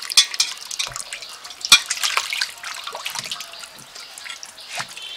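Water splashing and dripping as fish are washed by hand in a steel bowl, in uneven splashes and clicks, with one sharp knock about a second and a half in.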